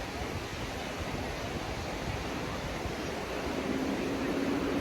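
Sea surf washing on the beach, an even rushing hiss, with wind noise on the microphone. A faint steady low hum joins about three and a half seconds in.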